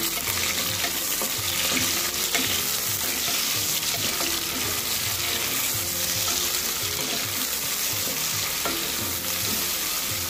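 Sliced onions sizzling steadily in hot oil in a pressure cooker as they fry, stirred with a wooden spoon.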